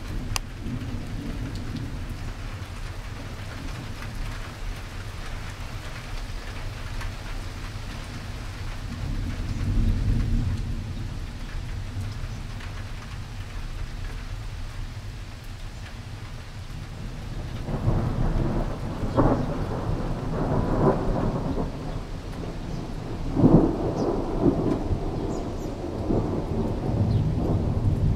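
Thunder rumbling over steady rain: a low roll about ten seconds in, then a longer, louder rumble through the last third.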